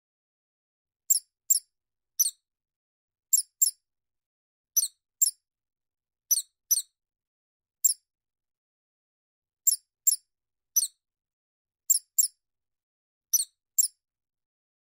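Mouse squeaking: short, very high squeaks with a quavering pitch, mostly in pairs, repeating every second or so with silence between.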